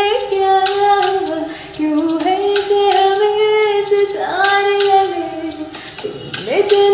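A woman singing solo, holding long notes and sliding up into a new note about four seconds in and again near the end.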